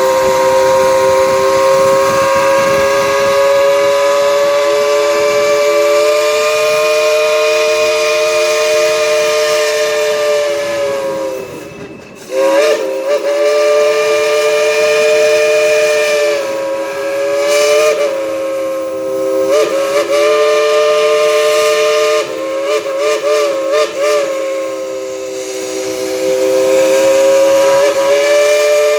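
Crosby chime steam whistle on a Baldwin steam locomotive, sounding a chord of several notes. It gives one long blast of about eleven seconds, then after a brief break blows on with the pitch dipping and wavering as the engineer works the cord. It ends in short toots.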